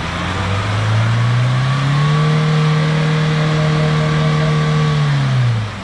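Mahindra Thar engine revving as the driver tries to reverse it out of deep mud, its front wheel dug in. The revs climb over the first second and a half, hold high and steady for about three seconds, then drop near the end.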